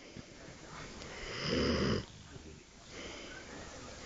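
Snoring during sleep: quieter breathing, then one loud snore about a second and a half in that lasts under a second, then quieter breathing again.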